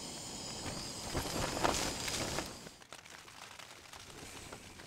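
Small backpacking gas canister stove burning with a steady hiss under a pot of water. About two and a half seconds in it gives way to a much quieter background of faint pattering rain on the tent.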